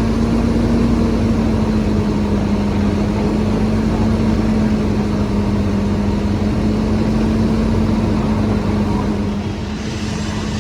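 A heavy engine, likely a fire engine's diesel at the fireground, running steadily with a constant low hum. It gets slightly quieter near the end.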